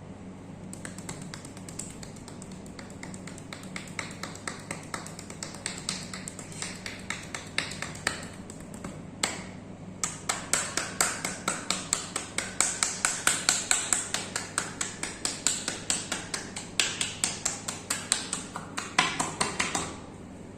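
Rapid percussive massage strokes: hands slapping and tapping on oiled skin at about five strikes a second. A lighter run stops briefly near the middle, then a louder, faster run follows and ends just before the close.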